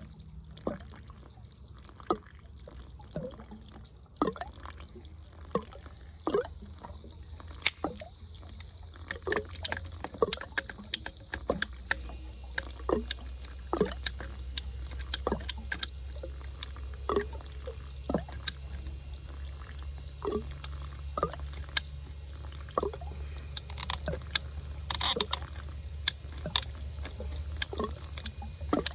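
Water dripping and trickling from a cut PVC water line as it drains, in many irregular drops and small splashes. A steady high hiss comes in about six seconds in.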